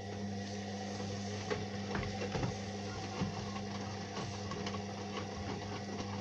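Indesit washing machine's motor turning the drum in a wash cycle: a steady hum with light clicking and rattling over it.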